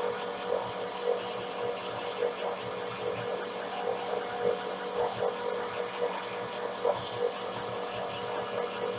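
Metal lathe running with a steady hum while a homemade M42×1.5 threading die cuts a thread onto a soft aluminium bar, with small irregular clicks about once a second.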